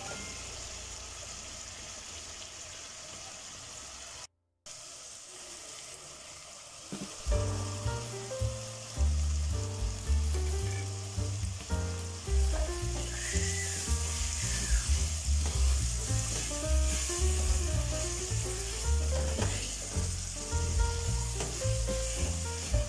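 Tomato masala sizzling in oil in an aluminium pot while a spatula stirs it, with peas stirred in after a short cut to silence about four seconds in. Background music with a steady bass line comes in about seven seconds in.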